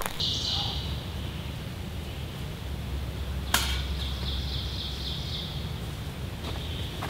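Woodland ambience: a bird gives a short high call just after the start and a rapid repeated trill about four seconds in, over a low steady rumble. A single sharp knock comes about three and a half seconds in.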